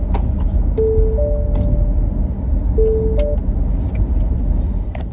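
Car-interior road rumble from a moving car, with music of a few long, held notes playing over it and some scattered sharp clicks.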